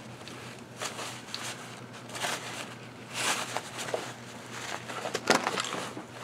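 Rustling and scraping of a cloth pouch and a fabric rucksack being handled as a small mesh camp grill is stowed, in several short irregular bursts.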